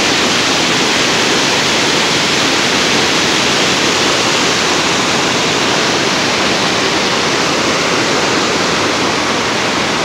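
The Nantahala River rushing over rock ledges and boulders in whitewater rapids: a loud, steady rush of water that holds even throughout.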